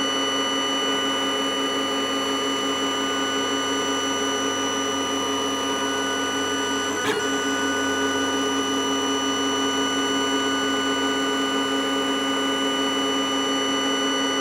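Lulzbot Mini 3D printer running while printing a first layer: a steady whine of several held tones, with a faint click about seven seconds in.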